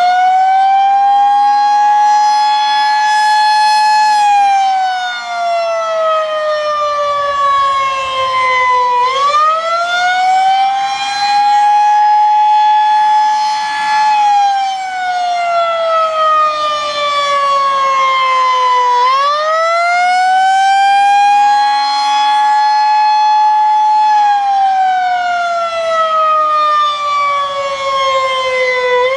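Federal Signal 2001-SRNB outdoor warning siren sounding the Attack signal: a very loud, very high-pitched wail that rises for about four seconds, holds briefly, then falls for about five, the cycle repeating about every ten seconds.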